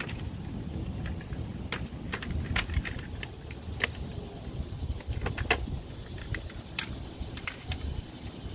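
Irregular sharp clicks and light metallic clinks of a landing net and its frame and handle being handled while the catch is hooked up for weighing, over a low wind rumble on the microphone.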